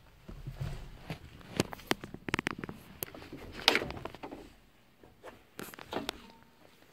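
An irregular run of knocks, clicks and scuffs, busiest in the first four seconds with a few more knocks near the end: someone moving about and stepping down off an excavator, with handling noise on the phone.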